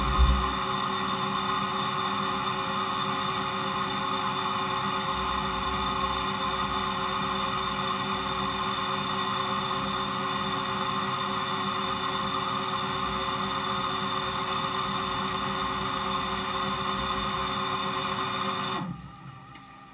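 Fadal VMC5020A CNC vertical mill running, its spindle turning a face mill in the air without cutting while flood coolant sprays: a steady machine whine with several pitches over a wash of spray. Near the end the spindle and coolant shut off and the sound drops away sharply.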